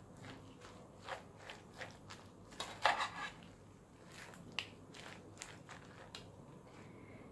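Shredded lettuce tossed by a gloved hand in a bowl with a creamy dressing: irregular crisp rustling and crunching of the leaves, heaviest about three seconds in, with a sharp click a little later.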